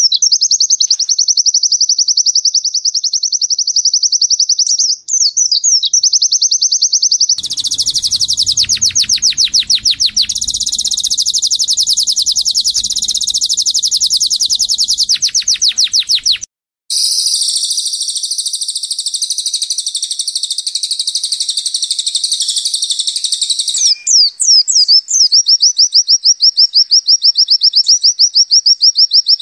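Songbirds singing in an edited compilation: a fast, even, zipper-like trill of high notes, then a denser, more varied song from about seven seconds in that cuts off abruptly about halfway, followed by more rich song before the fast trill comes back near the end. The singers are Oriental white-eyes (pleci) and a canary.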